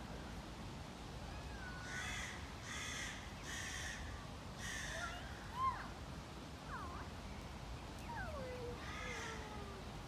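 A crow cawing: a series of four harsh caws about a second apart, then one more near the end. Thin, sliding whistled calls from other birds come in between the caws.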